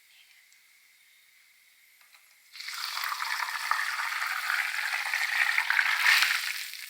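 Hot oil and fried minced garlic poured from the pan into a strainer, starting suddenly about two and a half seconds in with a loud, steady sizzle that lasts about four seconds.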